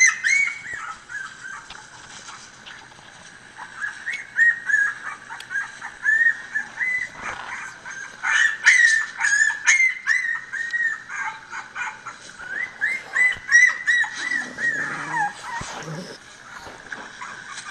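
Miniature Pinscher puppies whimpering and squealing in many short, high-pitched yips, played through a laptop's speakers; one longer cry falls in pitch near the end.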